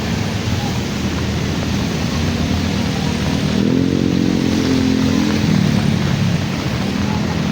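Street traffic in heavy rain: a steady rush of rain and water, with a vehicle engine passing whose pitch rises about three and a half seconds in and then falls.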